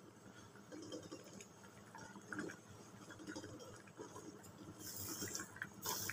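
A spatula stirring a thin curry in a metal pan: soft, irregular sloshing and scrapes against the pan, with two brief hissier scrapes near the end.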